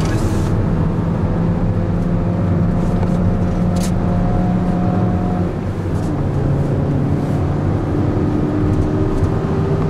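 Mini Cooper's four-cylinder engine heard from inside the cabin under way, holding steady revs, then dropping in pitch about five and a half seconds in and slowly rising again. There is a single light click about four seconds in.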